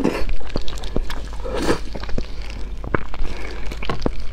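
Close-miked eating: wet chewing and lip-smacking of fatty meat, with many small sticky clicks and one louder wet slurp about a second and a half in, over a low steady hum.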